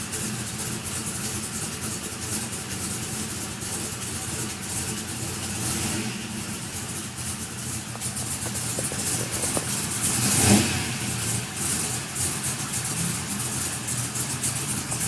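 Car engine running with a repeated light ticking, which the owner suspects is a bad valve lifter. The engine rises to a brief louder peak about ten seconds in, then settles back.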